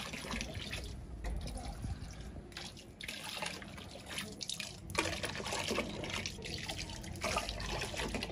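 A stream of water poured from a plastic jug splashing into a plastic tub of liquid, in pours with a couple of short breaks.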